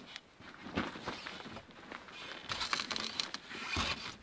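Irregular rustling with scattered light knocks and clicks, busier in the second half: clothing and tent fabric moving as a person climbs out of a roof-top tent and down its ladder.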